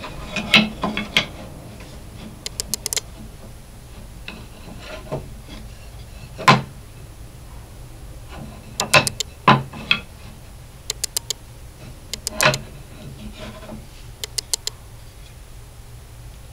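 Thin poplar and alder wood strips being laid out and shifted by hand on a table saw top: scattered sharp wooden knocks as strips are set down and bumped together, with quick runs of three or four light clicks, over a steady low hum.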